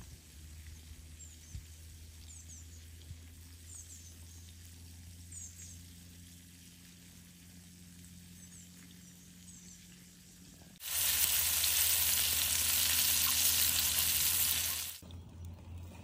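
Flour-coated fish frying: a loud, steady sizzle starts suddenly about eleven seconds in and stops abruptly about four seconds later. Before it there is only a low steady hum with faint high chirps.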